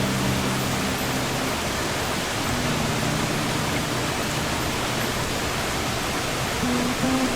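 Steady rushing hiss of sea surf, with soft sustained acoustic guitar notes ringing low beneath it; a new chord enters near the end.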